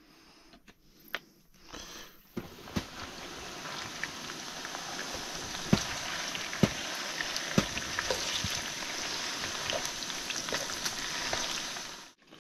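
Diced potatoes sizzling in hot oil in a frying pan. The sizzle starts about two seconds in and grows louder, and a slotted spoon stirring them knocks against the pan several times.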